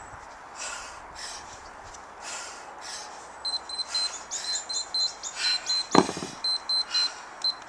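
Hard, rhythmic breathing during two-handed kettlebell swings, then a run of short, high electronic beeps in the second half. A loud thud about six seconds in as the cast kettlebells are set down on paving stones.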